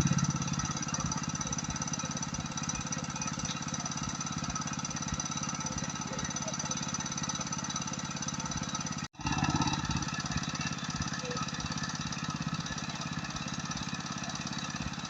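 A small engine running steadily at a constant speed, with a fast, even pulsing beat. There is a brief break about nine seconds in.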